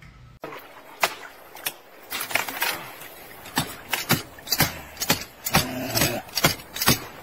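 Irregular sharp snaps and cracks with rustling, coming more often after a couple of seconds: dry branches and roots being pulled and broken by hand.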